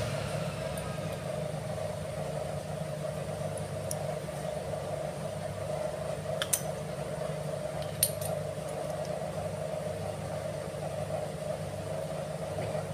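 A few small sharp metal clicks as the clutch housing, its ball cage and tiny springs are handled, the loudest two a second and a half apart near the middle, over a steady low hum.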